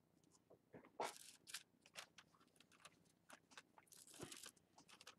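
Faint crinkling and rustling of a tissue-paper and straw kite frame being handled as string is threaded and tied, with scattered small clicks. There is a louder rustle about a second in and another around four seconds in.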